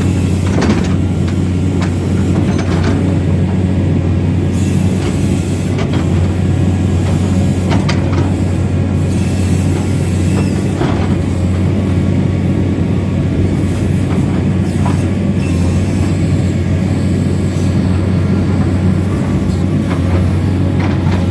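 Excavator engine running steadily under load, with scattered metallic clanks and knocks from the machine's working parts.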